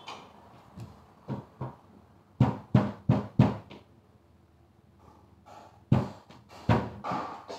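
Wooden knocks and bumps as a box bed's storage compartment and panels are handled: two lighter knocks, then four loud ones in quick succession, then two more with some scraping near the end.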